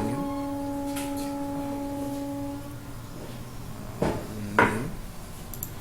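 A steady ringing tone with a few even overtones, fading out about two and a half seconds in, then a few sharp knocks, the loudest near the end.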